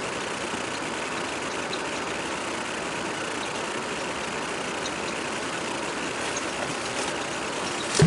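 Steady, even rushing noise that does not change.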